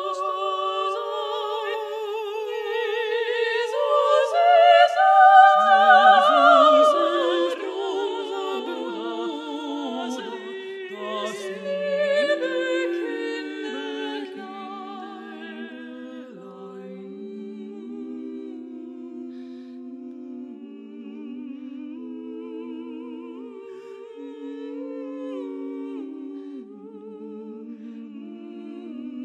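Three women's voices (soprano, mezzo-soprano and alto) singing an unaccompanied motet with vibrato. The top voice climbs highest and loudest a few seconds in. From about halfway the trio sings more softly in long-held lower chords.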